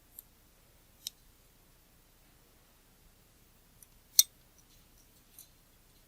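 Scattered small, sharp metal clicks and ticks of hand tools against the small metal parts of a camera lens being reassembled, about five in all, the sharpest a little after four seconds.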